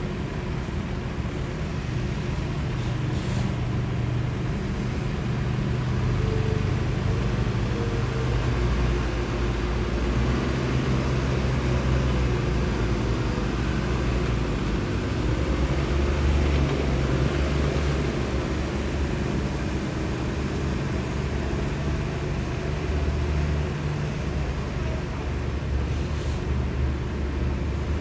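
Steady low rumble of distant vehicles, with no sharp events.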